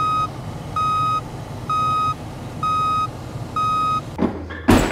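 Work truck's back-up alarm beeping steadily, about once a second, over the low rumble of the truck's engine as it reverses. A loud thump near the end.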